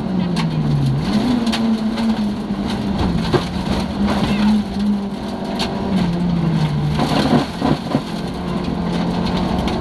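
Opel Corsa Group E rally car's engine running hard, heard from inside the cabin, its pitch dipping and climbing back twice. Loose gravel knocks against the car's underside throughout.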